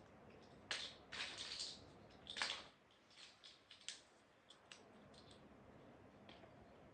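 Plastic Lego bricks being handled: a few short rustling scrapes in the first three seconds, then a run of light clicks that fades out.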